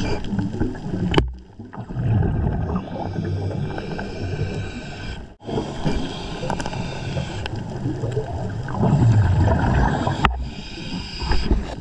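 Underwater bubbling and gurgling from a scuba diver's breathing, the exhaled air bubbling away. It drops out briefly about a second in and again around five seconds in.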